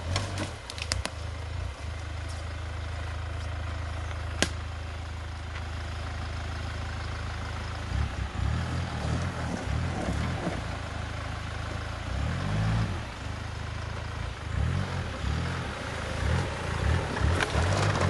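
Hyundai Terracan off-road SUV engine running at low revs, then revving up and down in repeated surges from about eight seconds in as the truck pulls up out of a grassy ditch under load, growing louder as it nears. A single sharp click about four seconds in.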